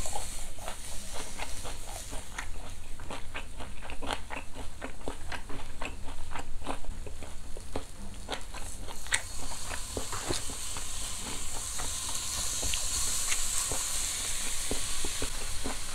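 Close-up crunchy chewing of raw onion, many small crackling clicks. About two-thirds of the way through, a slice of raw beef top blade (flat iron) is laid on a hot tabletop charcoal grill and starts a steady high sizzle.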